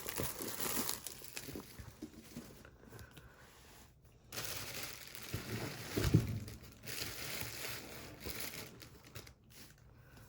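Packaging being torn open and handled, crinkling and rustling in fits and starts, with a single thump about six seconds in.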